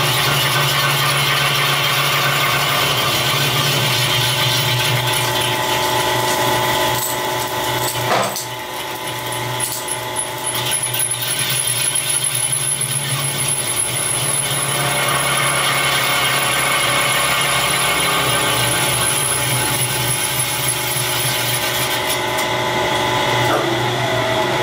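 Metal lathe running steadily with a truck wheel rim spinning in it while a cutting tool turns the rim: a constant motor hum under a ringing, tonal machining whine. A brief knock about eight seconds in.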